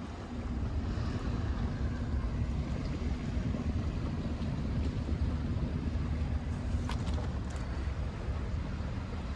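A boat's motor running steadily as a low rumble with a steady hum, with wind buffeting the microphone. A couple of short sharp clicks come about seven seconds in, as the hum fades.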